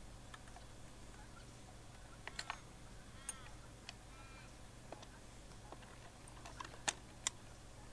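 Fence-strainer ratchet clicking as it is worked to tension a Horserail rail on its spooler: scattered clicks, with a quick cluster about two and a half seconds in and two sharper clicks near the end.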